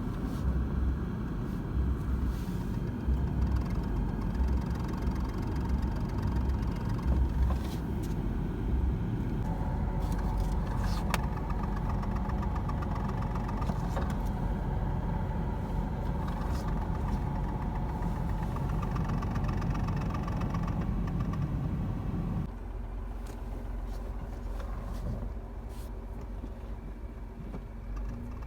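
A 2023 Renault Kwid running with the clutch noise that the owner complains of as a fault in the new car. The low rumble drops noticeably about 22 seconds in.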